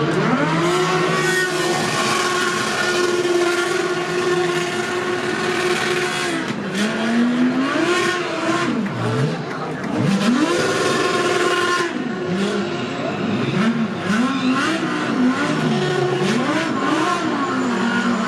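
Race car engine at high revs, held steady for about six seconds, then the revs repeatedly drop and climb again through gear changes as the car brakes and accelerates.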